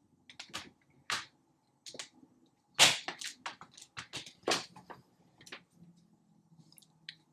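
Irregular sharp plastic clicks and snaps, about a dozen, the loudest about three seconds in, from a Nanoleaf Shapes triangle light panel being handled and pressed into place on its mount.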